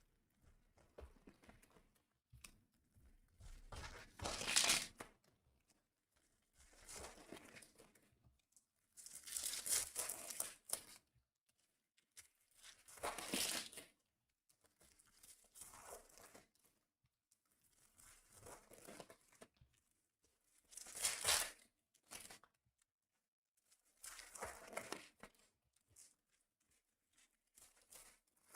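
Packaging of a 2025 Bowman's Best baseball card box being torn open and crinkled by hand: short bursts of tearing and crinkling every few seconds, the loudest about four, ten, thirteen and twenty-one seconds in.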